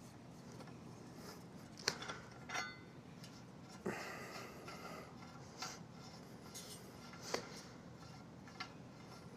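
Faint, scattered metal clinks and light knocks, a few seconds apart, as a prop wrench and the propeller nut are worked off an outboard's prop shaft.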